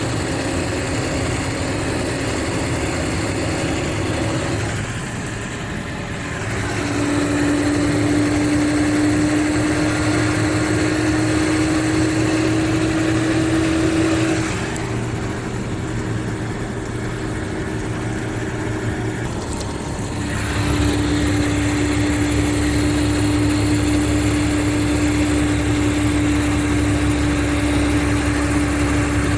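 Diesel engine of a Mercedes-Benz O500RSD coach pulling under load, its pitch climbing slowly. It drops back twice, about a fifth and halfway through, like gear changes or easing off, then pulls strongly again in the last third.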